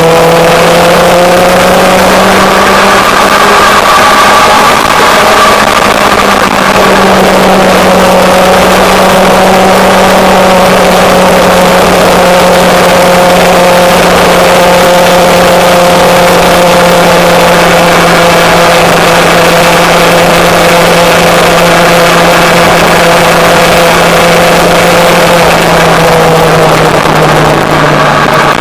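Motorcycle engine running at a steady cruising speed, its pitch rising slightly about two seconds in and easing off a little near the end, under a constant rush of wind and road noise.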